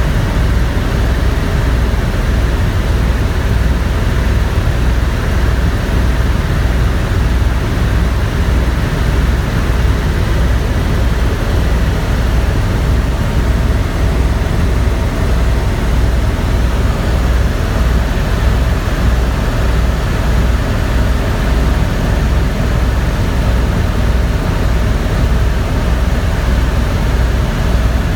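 Helicopter in flight: steady engine and rotor noise with an even, rapid low pulsing from the rotor blades.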